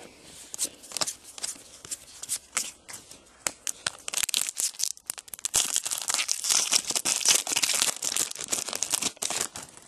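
Foil trading-card pack wrapper being torn open and crinkled by hand: a dense crackling that grows louder and busier about halfway through.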